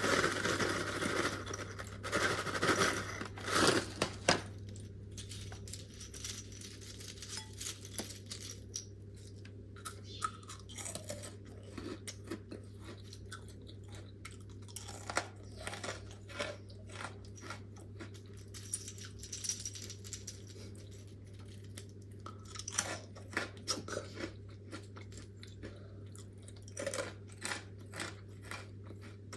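Close-miked crunching and chewing of freeze-dried fruit. The crunching is loud and dense for the first few seconds, then gives way to softer, scattered mouth clicks and chewing.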